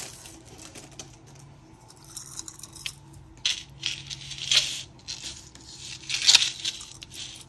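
Thin metal pocket-watch chain jingling and clinking against a countertop as it is picked up and handled, in scattered light clicks with a few louder clinks in the second half.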